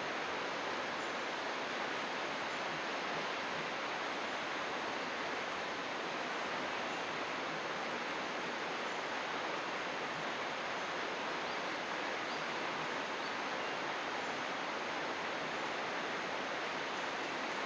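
Steady, even rush of flowing water, with no change throughout.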